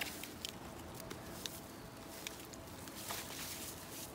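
Faint rustling of a twisted rope being handled and wrapped around a taut rope line, with a few light ticks.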